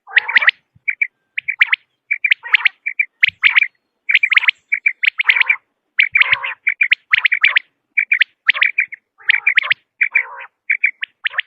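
Common quail calling over and over: loud, short, sharp notes in quick groups of two or three, repeated many times with brief pauses between the groups.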